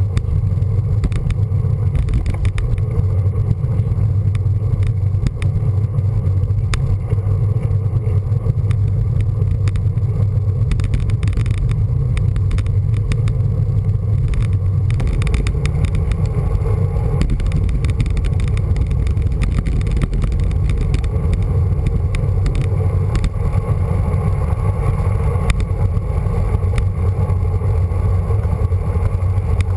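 Wind buffeting the microphone of a handlebar-mounted camera on a moving road bike, a steady low rumble, with scattered small clicks and rattles from the road.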